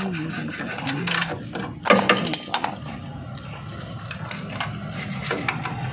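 Socket ratchet wrench clicking in short runs as it turns a bolt on a generator's radiator guard frame, with a sharp metallic knock about two seconds in.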